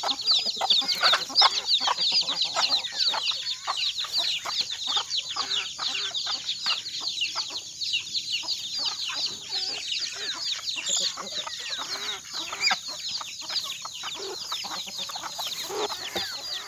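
A flock of free-range chickens clucking while they feed, over a constant chorus of quick, high, falling peeps, with a steady high hiss behind.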